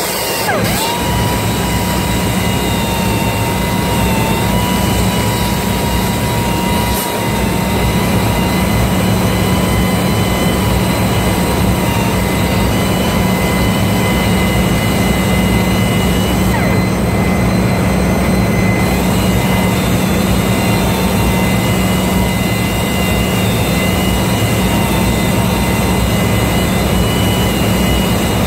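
Loud, steady machinery drone with a thin, slightly wavering whine over it, the running noise of a ship's engine room and workshop.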